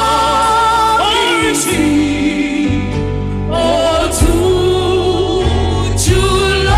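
Gospel worship music: a singer holds long notes with vibrato over a continuous instrumental accompaniment with a steady bass.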